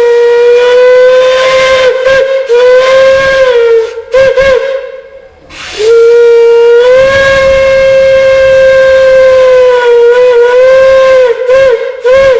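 Steam whistle blown loudly on one note in two long blasts, the pitch sagging and wavering as the valve is worked. Each blast ends in a few short toots, with a second or so of quieter steam hiss between them.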